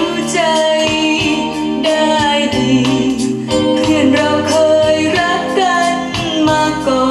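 A vinyl LP playing on a Dual 701 turntable: music with a singing voice.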